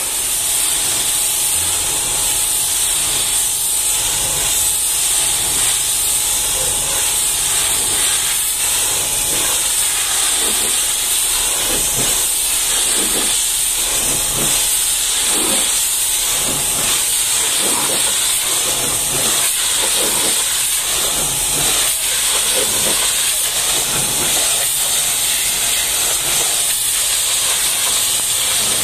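High-pressure washer jet spraying water onto a truck cab: a steady, loud hiss of spray that shifts a little in tone as the jet moves over the panels.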